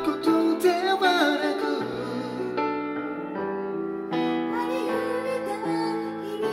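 Singing over a soft piano accompaniment track. The voice drops out about two seconds in, leaving the piano alone briefly, and comes back in the second half.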